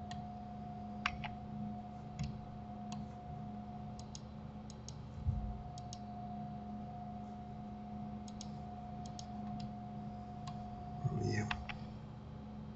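Computer mouse and keyboard clicking: scattered sharp clicks, several in quick pairs, over a steady electrical hum, with a low thump about five seconds in.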